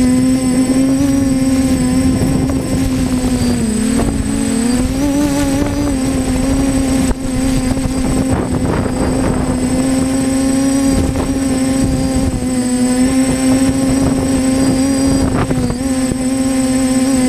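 TBS Discovery Pro quadcopter's brushless motors and propellers buzzing steadily, heard from its onboard GoPro. The pitch dips and climbs back about four seconds in, and rougher, gusty propeller noise swells around eight to ten seconds as the craft comes down low over the field.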